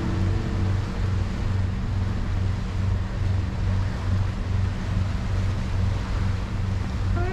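Background music in a sparse passage: a steady low bass pulse at about two beats a second over a soft hiss, the guitar notes having faded out. A new guitar phrase begins right at the end.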